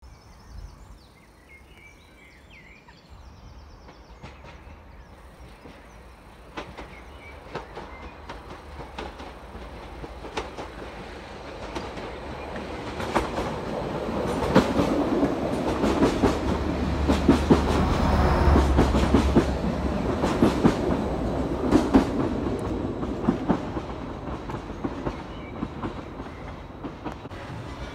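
Greater Anglia Class 755 Stadler FLIRT bi-mode train approaching, passing beneath and running away on an unelectrified line. Its engine rumble and the wheels clicking over rail joints build up, are loudest midway, then fade.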